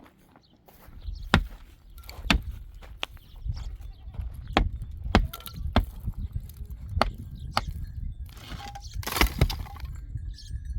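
A series of sharp knocks and cracks, about ten at irregular intervals half a second to a second apart, starting about a second in, over a low rumble.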